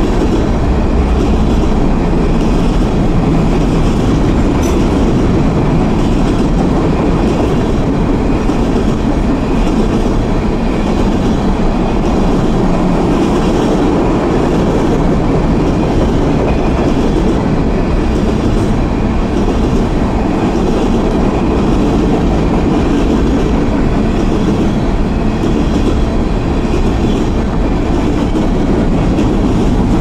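Freight train of covered hopper cars rolling past close by: a steady, loud rumble of steel wheels on the rails.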